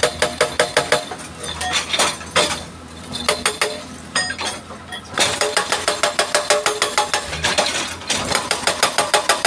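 Hydraulic rock breaker on an excavator hammering rock, with rapid metallic blows at about seven or eight a second. About a second in, the hammering breaks off into a few scattered blows for several seconds, then resumes steadily a little past halfway.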